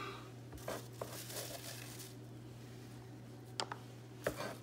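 Diced tomatoes, red onion and bell pepper stirred by hand in a plastic container: faint rustling and squishing, with two sharp clicks near the end. A steady low hum runs underneath.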